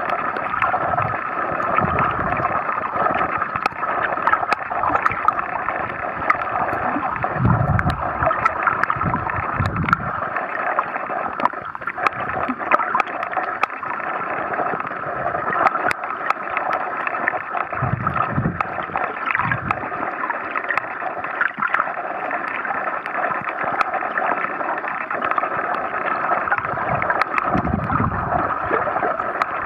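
Underwater noise picked up by a camera submerged while snorkeling over a reef: a steady muffled water hiss with scattered sharp clicks and a few low rumbles lasting about a second each.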